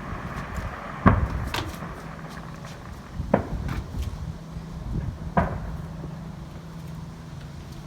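Aerial fireworks shells bursting as a series of sharp booms, three strong ones about two seconds apart with a couple of fainter pops between them.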